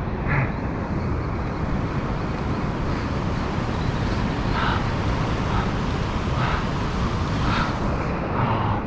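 Steady rushing wind on the microphone, mixed with the wash of surf.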